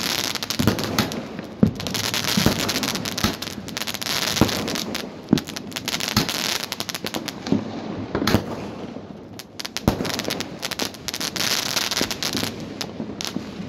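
Aerial fireworks going off: dense crackling with sharp reports about once a second as they burst into sparks.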